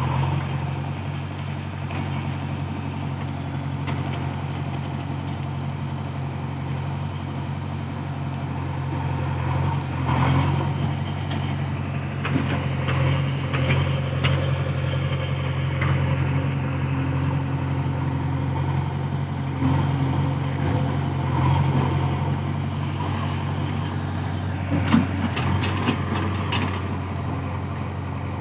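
Diesel engine of a JCB backhoe loader running steadily, with a few short clanks and rattles at intervals.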